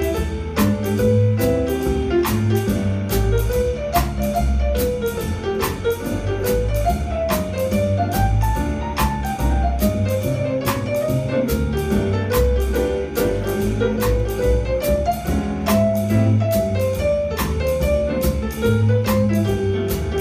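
Jazz piano trio playing live: a piano line over upright double bass and a drum kit, with a cymbal struck in a steady beat about twice a second.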